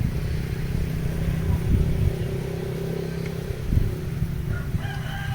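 A steady low rumble with a rooster crowing once near the end.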